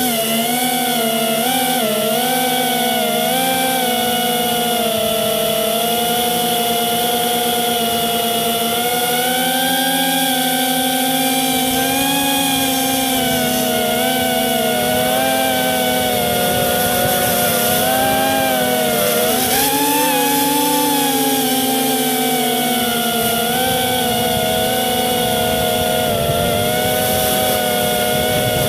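FPV multirotor drone's electric motors and propellers whining, heard from its onboard camera. The pitch wavers up and down with the throttle as it climbs and flies over the trees.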